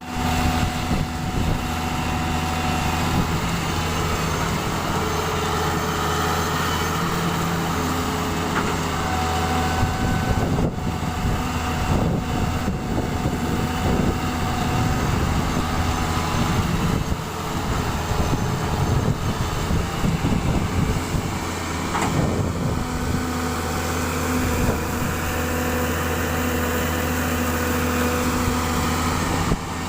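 Doosan 140 excavator's diesel engine running steadily. Through the middle there is a stretch of irregular knocks and clanks.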